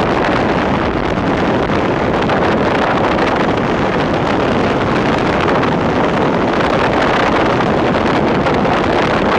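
Wind blowing across the microphone: a loud, steady rushing noise that never lets up.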